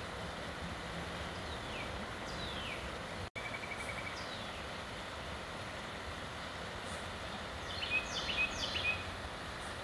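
Bicycle tyres rolling on a gravel towpath, a steady rolling noise. Birds call over it: a few falling whistles in the first half and a burst of chirps near the end, the loudest sound here.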